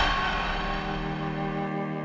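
Film score: a loud swelling rush breaks off at the start, leaving a dark sustained chord that slowly fades.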